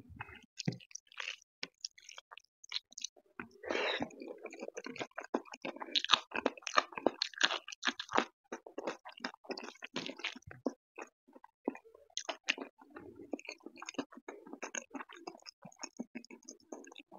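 Close-miked chewing and wet mouth sounds from eating dal-soaked rice by hand, with soft squishing as fingers mix the rice on the plate.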